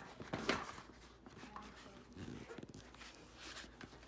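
A fat bike's rubber tyre being worked by hand against its rim, scuffing and rubbing, with one sharp knock about half a second in.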